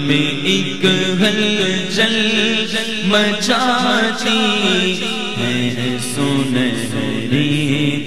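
Male naat reciter singing unaccompanied into a microphone through a PA, drawing out long ornamented pitch glides, over a steady low drone.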